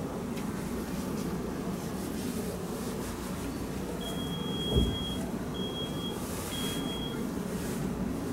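An electronic device beeps three times on one high steady pitch, the first beep about a second long and the next two shorter, over a steady low room hum. A single low thump comes during the first beep.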